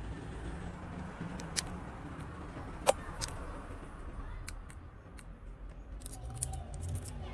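Light clicks and taps of an opened Samsung Galaxy A8 Plus being handled by fingers, with one sharp click about three seconds in and a quick run of small clicks near the end, over a low background rumble.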